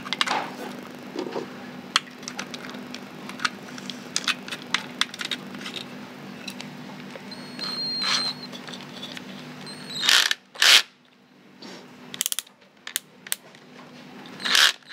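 Scattered clicks and light knocks as a cutting disc is fitted and tightened onto a cordless drill's chuck, with a few louder noisy bursts about ten seconds in and again at the end. A faint steady hum underneath stops about twelve seconds in.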